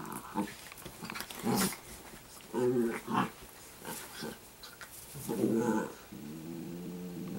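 Italian greyhounds growling as they play-fight: a low, steady growl, broken by a few short, louder snarls and yaps in the middle, before the steady growl picks up again about six seconds in.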